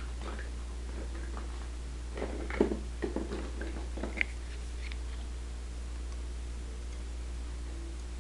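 A handful of small clicks and taps from handling paint pots and brushes, bunched together between about two and four seconds in, over a steady low hum.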